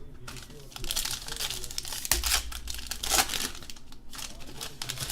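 Trading card pack wrapper crinkling and being torn open, in irregular crackly bursts, loudest about three seconds in.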